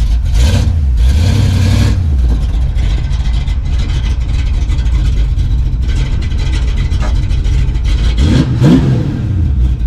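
Cammed V8 of a Fox-body Mustang GT running through its exhaust. It is revved in a few short blips in the first two seconds, then settles to idle, with one more rev rising and falling about eight seconds in.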